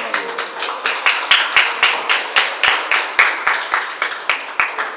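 Applause, with one pair of hands clapping close by in a steady rhythm of about four claps a second over fainter clapping; it thins out near the end.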